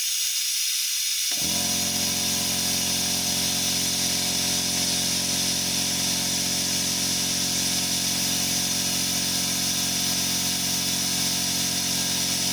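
Electric brake fluid replacement pump switching on about a second in and then running steadily, drawing brake fluid out through the caliper's bleeder hose, over a steady hiss.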